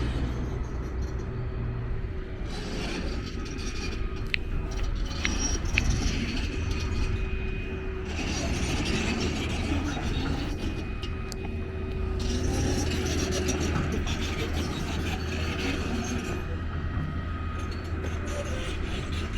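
Street traffic: a steady low rumble of passing vehicles that swells and fades, with a few short sharp clicks about four to six seconds in.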